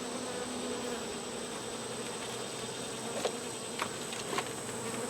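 Honey bees buzzing around a hive in a steady hum, with a few light clicks about three and four seconds in.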